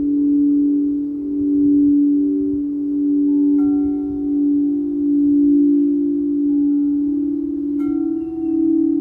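Singing bowl sustaining a steady, pulsing drone whose loudness swells and fades about once a second. Two bright chime strikes ring out over it, one about a third of the way in and one near the end.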